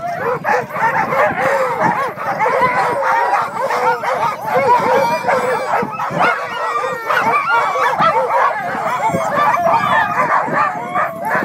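A pack of harnessed sled dogs barking and yelping all at once in a constant, overlapping din, excited and eager to be off on a run.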